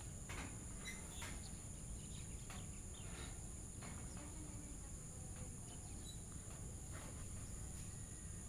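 Quiet outdoor background: a steady high-pitched hiss over a faint low rumble, with scattered faint chirps and clicks.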